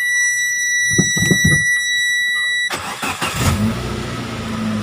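Chery QQ 311 three-cylinder engine being started: a steady high warning tone sounds while the starter turns it over, then stops as the engine catches a little under three seconds in and settles into a steady idle. It runs on newly fitted high-tension spark plug wires, put in to cure a misfire.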